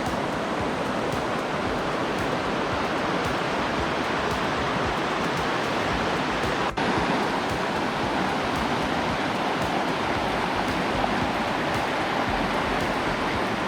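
Mountain stream rushing over rounded boulders in small cascades: a steady rush of water, briefly broken about halfway through.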